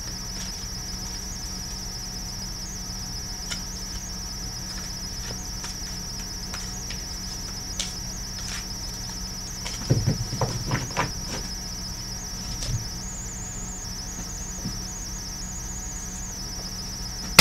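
Crickets chirping steadily in the background, a continuous high pulsing trill, with a second trill joining briefly near the end. A few sharp knocks come about ten seconds in.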